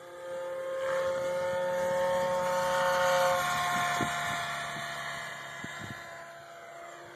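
Radio-controlled Compass model helicopter flying past. The whine of its rotors and drive swells about a second in, then fades, its pitch falling near the end.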